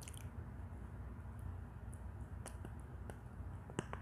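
Mouth biting and chewing a chunk of Turkistan clay coated in wet clay slurry: a few scattered sharp clicks and soft squishes over a steady low hum.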